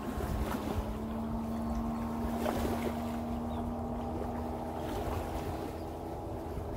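Distant motorboat engine droning at a steady pitch, over a low rumble of wind on the microphone and the wash of small waves on the shore.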